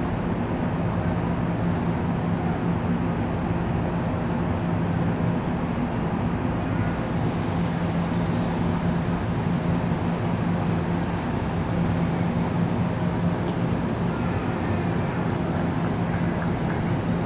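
PL42AC diesel locomotive of a stopped commuter train running steadily, giving a constant low hum. A faint hiss joins in about seven seconds in.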